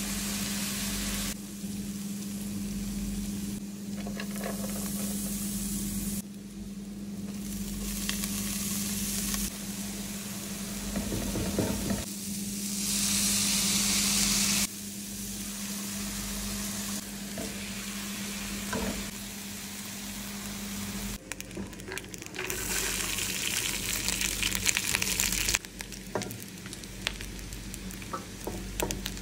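Food frying and sizzling in a nonstick frying pan, diced onions and then herbs and tomato, with a spatula stirring, in short clips that cut abruptly from one to the next, over a steady low hum for most of it. Near the end, a spoon clinks and scrapes against the pan.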